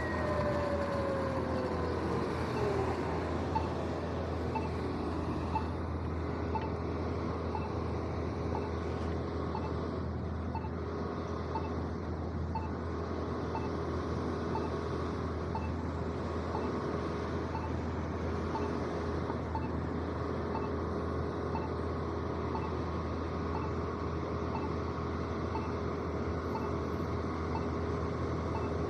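Traffic running at a signalled intersection. A pedestrian signal's locator tone ticks about once a second throughout. At the start, an electric bike motor's whine falls in pitch as the bike slows to a stop.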